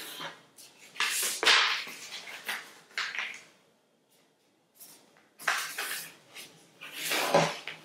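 Sheets of paper being handled and folded on a tabletop: irregular bursts of rustling as they are slid, lifted and creased, with a quiet pause about halfway through.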